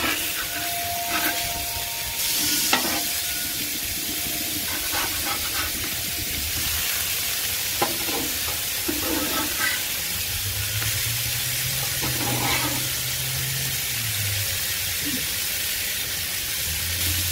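Beef burger patties sizzling steadily on a hot Blackstone flat-top griddle. A steel spatula scrapes and taps the griddle a few times as the patties are flipped.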